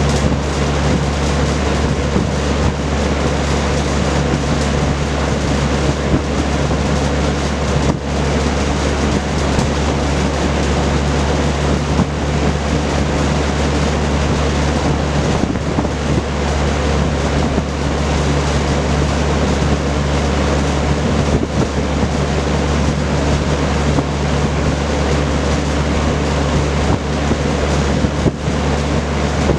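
Vintage Kenmore Roll-A-Matic 20-inch reversible box fan with a four-blade propeller running steadily: a loud, even rush of air over a constant motor hum.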